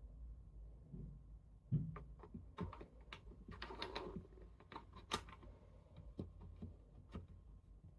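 A quick, irregular run of small clicks and light knocks, the sharpest about two seconds in and another near five seconds, thinning out after about seven seconds.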